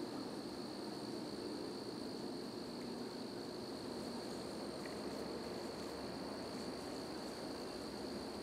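Steady outdoor background: a low, even hum with a thin, steady high-pitched whine over it, and no distinct events.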